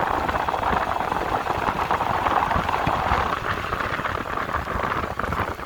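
Road noise from a vehicle running over a rough road surface: a steady dense crackle with a low rumble underneath.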